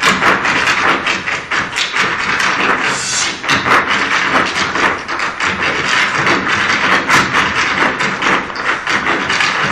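Massed Irish hard-shoe dancing: a troupe's shoes striking the stage in rapid rhythmic taps, over backing music.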